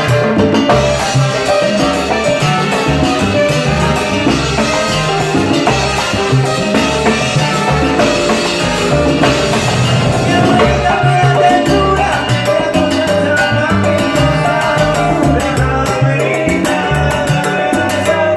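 Live salsa band playing, with percussion and horns over a steady rhythmic bass.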